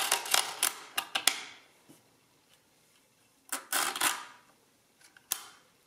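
Multical mechanical calculator being worked by hand: a quick run of metallic clicks and ratcheting as its crank is turned, then a second short clatter a few seconds later and a single click near the end.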